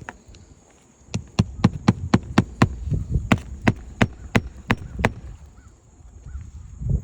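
Hammer driving roofing nails into a new asphalt shingle: a quick run of about fourteen sharp strikes, roughly three a second, starting about a second in and stopping about five seconds in.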